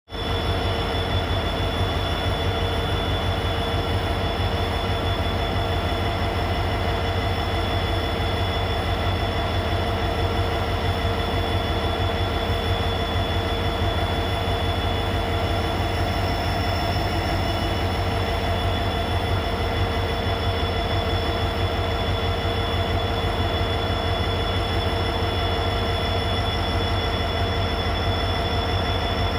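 A pair of coupled diesel locomotives idling at a standstill: a steady, unchanging engine drone over a low rumble, with a few constant whining tones on top.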